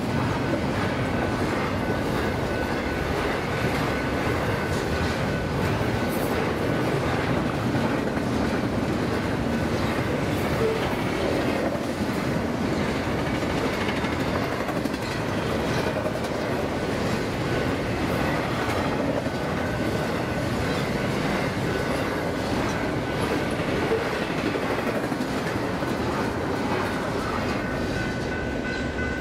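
Intermodal freight train's cars passing at about 70 mph: a steady rush of steel wheels on rail with clickety-clack over the joints.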